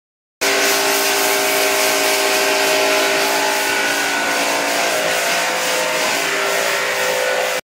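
Pressure washer spraying water onto a car: a steady hiss of spray over the even hum of the washer's motor and pump. It cuts in about half a second in and cuts off suddenly just before the end.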